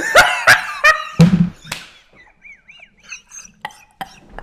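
Loud, honking bursts of a man's exaggerated fake sneezing, several in quick succession in the first two seconds. After them come a few faint high squeaks.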